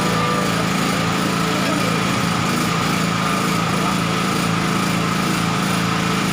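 Portable petrol generator engine running steadily at constant speed, with a steady hum and a high whine over it.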